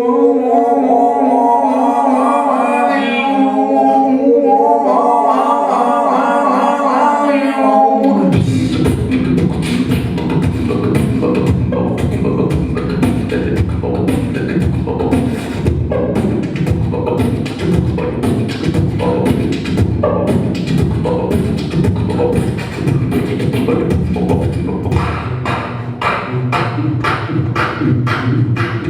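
Vocal group improvising a cappella. It opens with held droning notes and a wavering sung melody above them. About eight seconds in, it turns into a fast, dense rhythmic groove of beatboxed percussion clicks over a pulsing low vocal bass.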